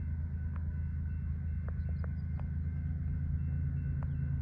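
Low, steady rumble of an approaching Union Pacific freight train's diesel locomotives, growing slowly louder.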